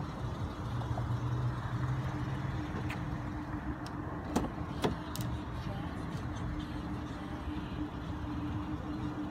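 Steady low rumble of a vehicle idling, with two sharp clicks about four and a half and five seconds in.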